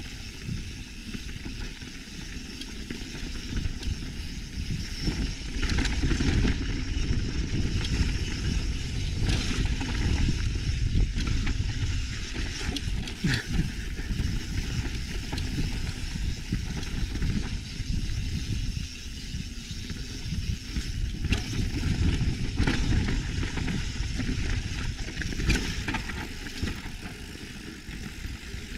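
Mountain bike riding down a loose, rocky gravel trail: a steady low rumble of tyres crunching over stones, broken by several sharp knocks and rattles as the bike hits rocks.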